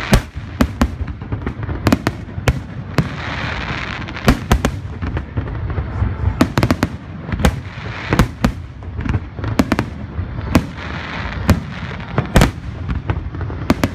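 Aerial firework shells bursting overhead in a rapid, irregular barrage of sharp bangs, several a second at times, with a continuous hiss and rumble between them.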